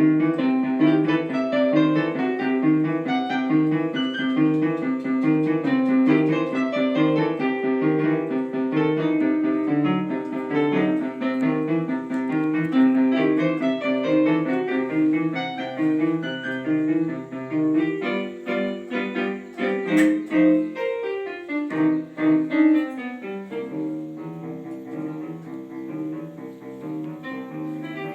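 Music: a piano playing a rhythmic pattern of repeated chords. The low notes drop out for a few seconds about two thirds of the way through, and the playing gets quieter near the end.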